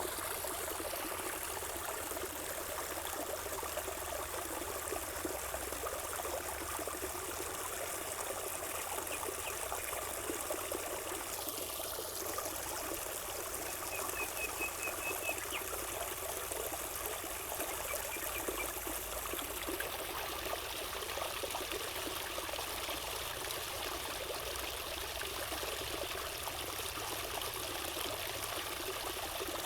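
Water trickling and splashing steadily, with no pauses or surges.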